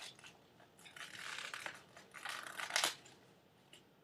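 Plastic food packaging crinkling as it is opened and handled, in two stretches about a second long, the second ending in a sharper crackle.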